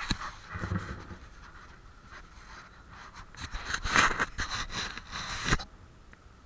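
Rustling and scraping against the camera microphone, as something rubs over the camera. The loudest stretch is a long scraping burst from about three and a half to five and a half seconds in, and it dies down to a faint hiss after that.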